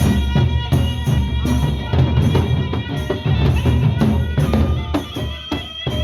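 A gendang beleq ensemble plays Lombok's Sasak music: big barrel drums beat quickly under clashing cymbals and steady ringing metal tones from gongs and kettle-gongs.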